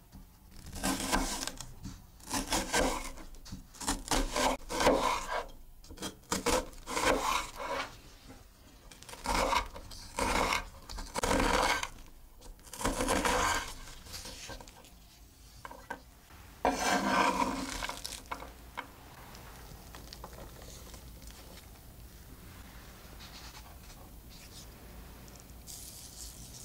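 A chef's knife slicing and chopping a raw onion on a wooden board: about fifteen separate crisp, crunching cuts, each under a second. The cutting stops around two-thirds of the way in and the sound falls to a low hiss. Near the end comes the faint hiss of salt being poured into a glass bowl.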